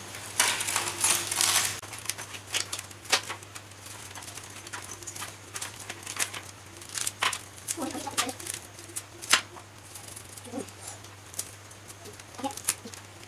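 Hands tearing apart a grilled Muscovy duck on a serving tray: a rustling, crackling stretch near the start, then scattered sharp clicks and crackles of meat, bone and dish being handled. A low steady hum runs underneath.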